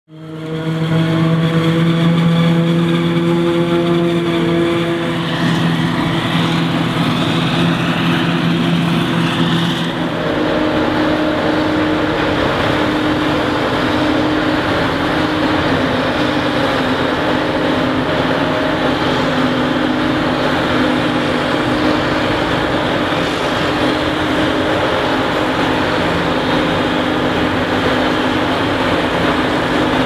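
Claas Jaguar 950 self-propelled forage harvester running steadily under load while chopping maize: a steady engine drone over a dense rushing noise. The sound fades in at the start, and the pitch of the drone shifts about ten seconds in.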